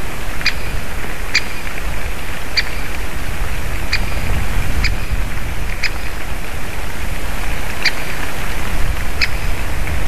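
Great spotted woodpecker giving its single sharp 'kik' call about eight times, spaced a second or so apart with a longer pause in the middle, over a steady low rushing noise.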